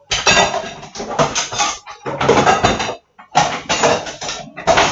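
Washing up at a kitchen sink: loud stretches of water and handling at the sink, in four spells with short breaks between them.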